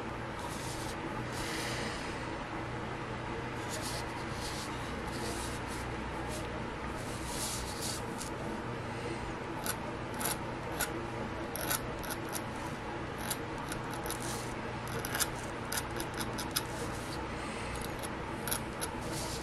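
Pen nib scratching on paper in short strokes and ticks, over a steady electrical hum.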